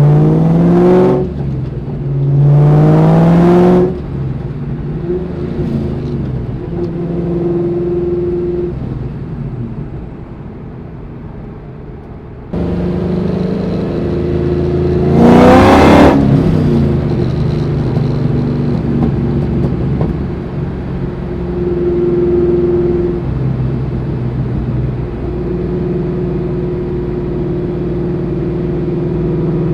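Supercharged 4.6-litre V8 of a 2003 Ford SVT Cobra running through its aftermarket exhaust. It is revved twice in quick succession near the start and then settles to a steady run. About halfway through it is revved hard once more, the loudest moment, before running steadily again.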